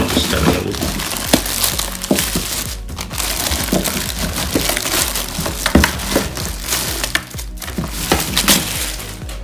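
Clear plastic packaging bag rustling and crinkling as a paint sprayer is worked out of it by hand, with several sharp knocks of the handled sprayer against a wooden floor.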